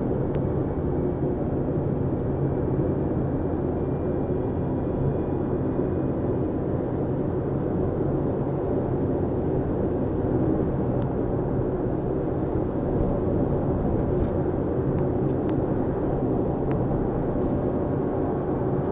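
Abnormal steady drone from a 2006 Suzuki Swift driven at 60 to 90 km/h, a whooshing roar that sounds like an airplane taking off.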